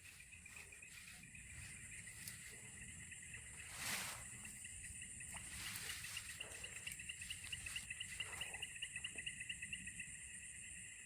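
Faint night-time insect chorus: steady high chirring, joined about halfway through by a faster pulsing call at several beats a second. A brief rustle comes about four seconds in.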